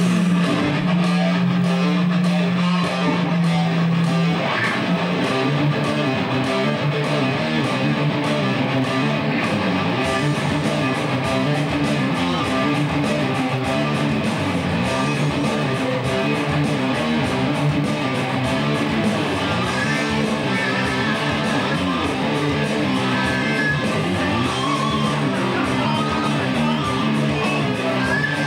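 Electric guitars played loud through amplifiers: a held low note for about the first four seconds, then a repeating riff.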